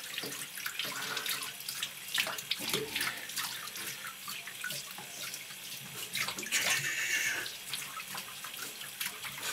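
A handheld shower head sprays water over a wet kitten in a bathtub, with irregular splashes and water running into the tub.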